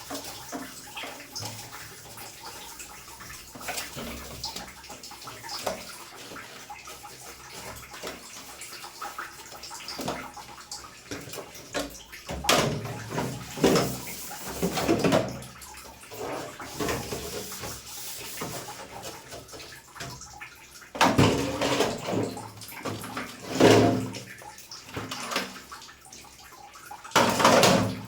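Running water splashing and washing, with louder surges about halfway through and a few more near the end, as during the water rinse of an air-conditioner cleaning.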